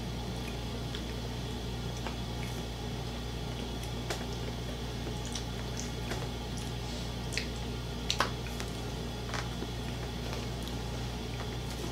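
Close-miked eating with bare hands: fingers picking at food on plates and chewing, with a few short sharp clicks and smacks, the loudest about eight seconds in, over a steady low hum.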